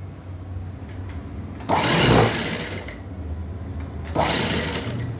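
Industrial sewing machine stitching in two runs of about a second each, the first just under two seconds in and the second about four seconds in, with the motor humming steadily in between.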